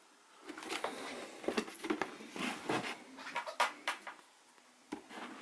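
Cardboard firework cake box being handled and turned over by hand: a run of rustles, scrapes and light knocks, then a brief second flurry near the end.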